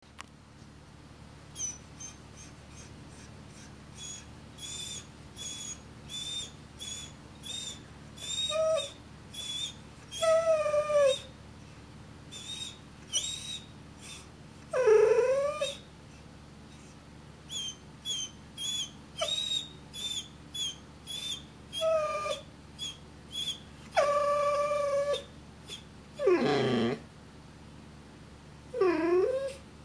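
A dog whimpering and whining: many short, high, thin whines about a second apart, broken by several longer whines that slide down in pitch, the deepest near the end. The dog is unhappy at wearing a large plastic cone after surgery.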